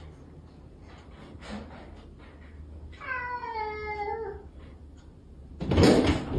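A domestic cat meows once: a long call of about a second and a half that falls in pitch. Near the end comes a short, loud rushing noise, the loudest sound here.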